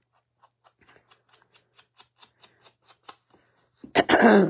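An ink dauber is rubbed in quick short strokes, about four or five a second, along the edge of a cardstock panel, a faint dry scuffing. Near the end, a loud cough.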